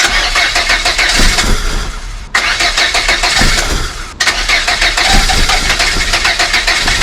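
Volvo 480 engine being cranked over by the starter in a start attempt that fails: a fast, rhythmic churning that eases about two seconds in and then starts again sharply. It is the car's no-start fault, with the weird sound the owner keeps hearing on these attempts.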